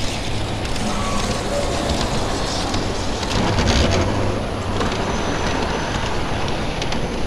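Model train running on the layout's track: a steady rumble and rattle with a few faint clicks.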